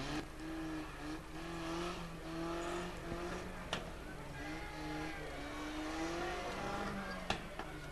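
Demolition derby car engines revving and labouring as the cars push against each other, the pitch rising and falling, with two sharp knocks, the second one louder, near the end.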